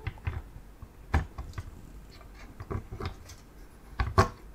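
Arctic Freezer 34 eSports Duo tower CPU cooler being lowered onto a motherboard and seated on the processor: a few scattered light clicks and taps of the cooler and its mounting hardware, the loudest two close together near the end.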